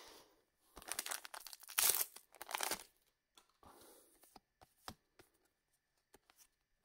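A trading-card booster pack being torn open: a few noisy rips and crinkles of the wrapper about a second in. Then faint clicks and snaps as the cards are handled and fanned through.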